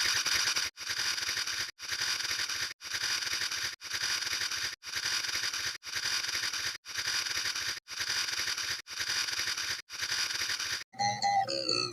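A sound effect looped: the same noisy, hiss-like burst about a second long, repeated with short gaps roughly once a second. Near the end it gives way to a different effect made of short pitched blips.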